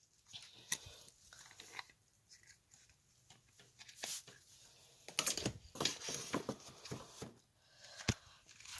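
Hands handling wiring and small plastic parts while a wire is connected: irregular clicks, taps and rustling, busier in the second half, with a sharp click near the end.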